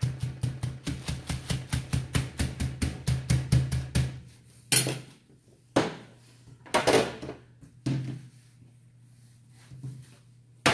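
Raw chicken breasts in a plastic bag on a plastic cutting board being pounded flat with a gloved fist: rapid knocking, about five blows a second, that stops about four seconds in. It is followed by four heavier single thumps on the board about a second apart.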